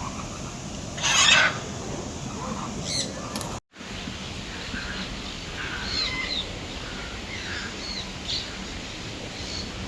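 Birds calling over a steady background hiss: a loud, harsh burst about a second in, then after a brief dropout a run of short chirps and whistles.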